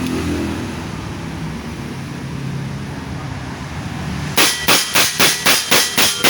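Genta Monster semi-automatic PCP air rifle firing a rapid string of shots, about three a second, starting near the end and running on as it empties the magazine. Before the shots there is a steady low background rumble.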